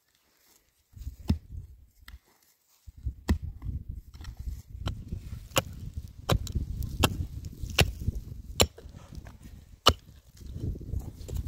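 Short-handled mattock striking into hard, stony dry soil, digging a hole: about ten sharp blows, coming steadily about one every three-quarters of a second after a couple of scattered early strikes.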